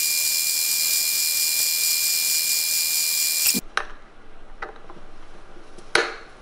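Milling machine spindle running with a small end mill cutting into the metal shell of a 38999 circular connector: a steady high-pitched hiss with a constant whine. It cuts off suddenly about three and a half seconds in, followed by a few light clicks as the connector is handled and fitted onto its module.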